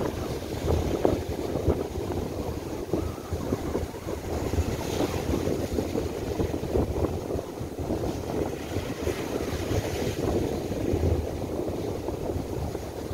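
Strong gusty wind buffeting the microphone over rough surf breaking and washing up a beach; the hiss of the surf swells a couple of times.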